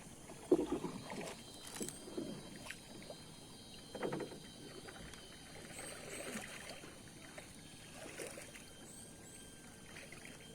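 Faint, irregular splashes and knocks of a small boat on river water, coming every second or two.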